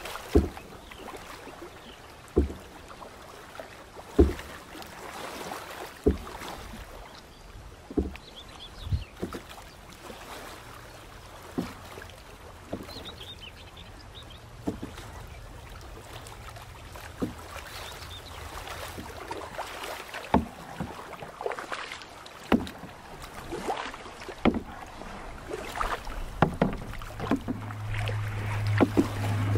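Canoe being paddled on calm water: paddle strokes splashing through the water, with a sharp knock about every two seconds as the paddle works against the canoe. A steady low hum comes in near the end.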